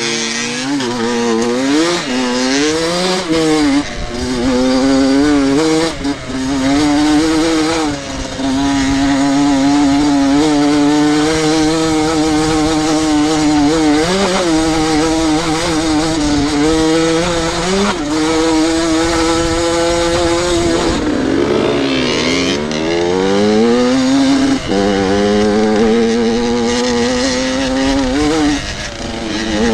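Enduro motorcycle engine being ridden, its pitch rising and falling with throttle and gear changes, holding steady for long stretches. About two thirds through, the revs drop sharply and then climb back up.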